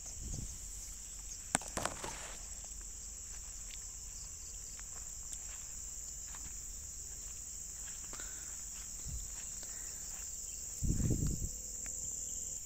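Insects calling steadily in one high, even tone. A few sharp clicks come a couple of seconds in, and there is a brief low rustle, about a second long, near the end.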